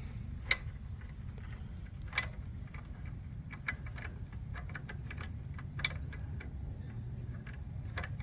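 Light, irregular metal clicks and ticks from a hand tool (an Allen bit on an extension) working against a bolt and the motorcycle's crash-bar mount while the bolt is being started in its hole. A steady low rumble runs underneath.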